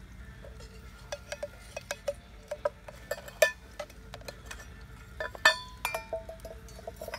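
Small metal tin being worked open with a knife blade around its lid, then handled over an enamel pot: a run of sharp metallic clicks and clinks, some ringing briefly, loudest about three and a half and five and a half seconds in.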